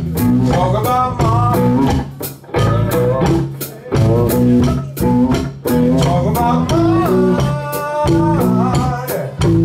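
Live blues-rock band playing: electric guitar over bass and a drum kit keeping a steady beat, with the drummer singing into his microphone.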